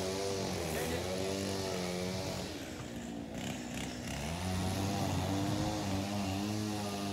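An engine drones with a wavering pitch that sags and fades about three seconds in, then comes back steadier.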